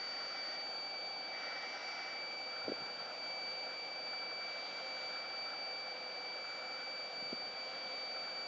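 Battery-powered bubble machine's blower fan running with a steady high-pitched whine over a steady rushing hiss. A single soft knock comes a little under three seconds in.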